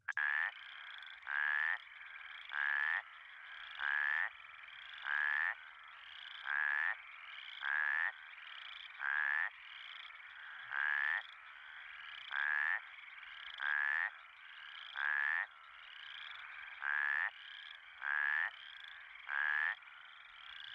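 A plains spadefoot calling over and over: about fifteen short, harsh, snore-like calls, each about half a second long and one every second and a half or so. A fainter steady chorus of frogs runs behind them.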